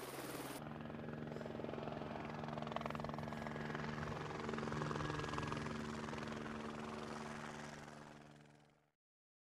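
Steady engine drone of a coast guard surveillance aircraft, heard from on board, with a shift in its note about half a second in. It fades out shortly before the end.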